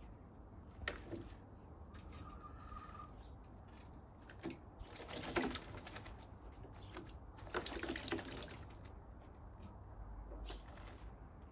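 A Eurasian jay bathing in a plastic tub of water: bouts of splashing and wing-fluttering, the biggest about five and eight seconds in.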